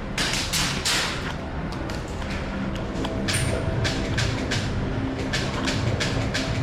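Airsoft gunfire: an irregular run of sharp cracks and snaps from guns firing and BBs striking hard surfaces, with two longer hissy bursts in the first second.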